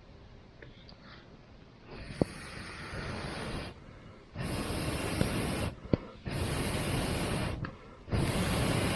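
Four long breathy blows onto a campfire, one every two seconds or so, each a rushing hiss lasting over a second. Burning wood gives a few sharp pops.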